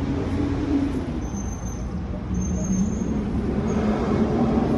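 Street traffic noise, with a large motor vehicle's engine running close by as a low hum that shifts in pitch.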